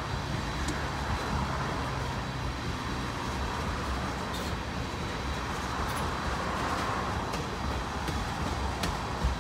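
Steady rolling rumble of a passing train, with a few sharp clicks about four, six and nine seconds in.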